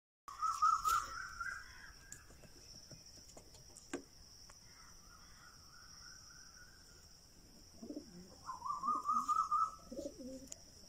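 Pigeons cooing in low, pulsed phrases in the last few seconds, with another bird's wavering trilled call repeating several times. A steady high-pitched insect drone runs underneath.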